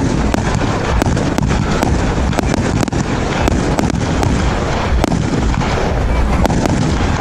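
A 66-shot firework cake firing: a fast, irregular run of bangs and cracks, several a second, over a continuous low rumble.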